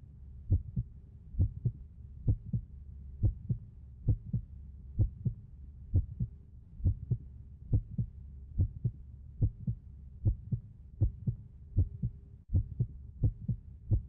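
Heartbeat sound effect: paired low thumps, lub-dub, repeating steadily about once a second over a low hum.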